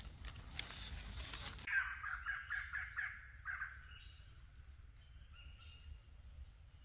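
Leaf litter rustling, then a bird calls a quick run of seven or eight harsh repeated notes over about a second and a half, followed by a few fainter, higher bird notes.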